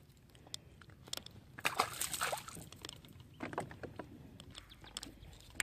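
Water sloshing and splashing, with a louder burst about two seconds in and a shorter one about three and a half seconds in.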